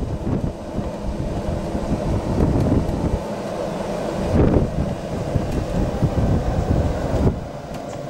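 Wind buffeting the microphone on a moving electric golf cart, an uneven low rumble with no motor sound to speak of.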